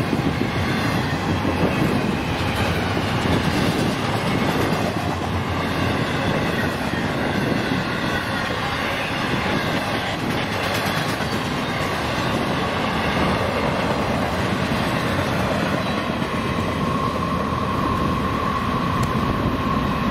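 Train cars rolling past at track level: a steady rumble with wheels clacking over the rail joints. A steady high-pitched tone comes in about three-quarters of the way through.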